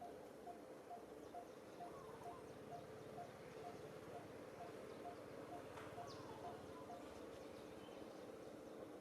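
Faint outdoor wildlife ambience: a short, even note repeats about twice a second and stops near the end, over a steady low hum, with a few brief bird chirps.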